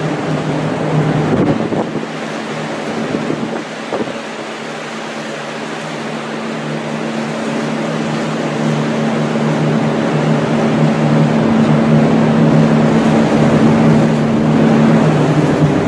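Strong wind buffeting the microphone over rough sea, with a steady low machinery hum underneath that stops near the end.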